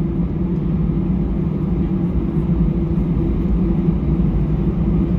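Steady low rumble of an Airbus A319-111 cabin on the ground after landing, its CFM56 engines running at idle.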